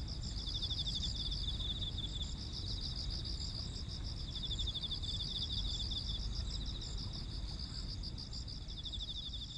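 Chorus of singing insects in the summer grass: rapid pulsing trills at a high pitch. One trill runs continuously; a slightly lower one comes and goes in phrases of a couple of seconds. A steady low rumble lies underneath.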